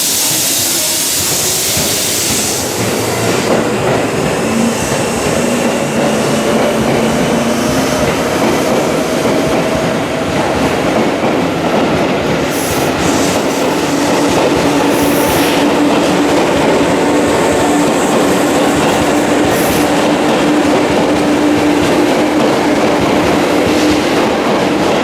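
Electric train running on the rails, its wheels clattering, with a steady low motor whine that climbs a little in pitch through the first half and then holds. A few short high-pitched wheel squeals come in the second half.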